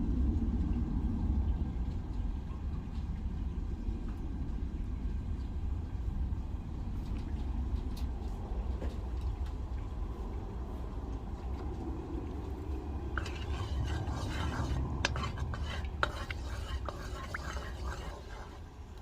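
Steady low rumble throughout. From about two-thirds of the way in, a run of clinks and taps as cooking utensils and dishes are handled against a pan.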